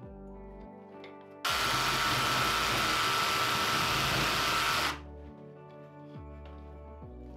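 Makita cordless drill running steadily for about three and a half seconds, driving a large screw through the foot of a steel angle bracket into a plugged hole in the floor. It starts about a second and a half in and stops suddenly.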